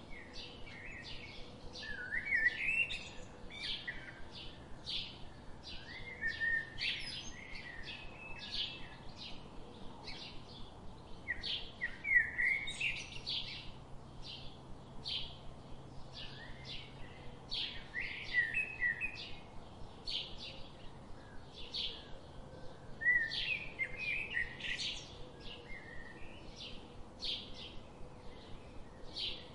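Songbirds chirping and singing: a steady run of short high chirps, about two or three a second, with louder warbling phrases breaking in every few seconds.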